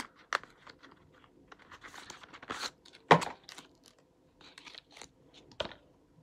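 Paperboard product carton being handled and torn open, with crinkling, rustling and short snaps as a tube is pulled out; the loudest is a sharp snap about three seconds in.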